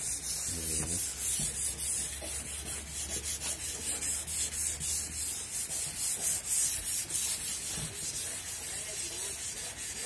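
Hand sanding of a refrigerator's primed sheet-metal panel with a small sanding pad: repeated back-and-forth rubbing strokes, a steady scratchy hiss. This is the final sanding of the primer before the paint goes on.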